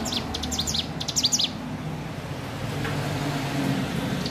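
Ciblek gunung, a small prinia, practising its song: a quick run of short, high, downward-sliding chirps in the first second and a half, then one more brief chirp near the end. A steady low hum sits underneath.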